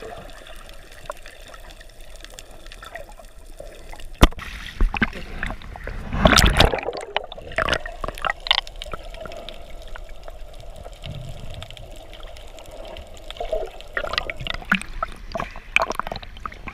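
Water heard through a submerged action camera: muffled gurgling and trickling with light crackles, a sharp click a little after four seconds and a louder rush of bubbles around six seconds in. Near the end it turns to choppier splashing as the camera breaks the surface.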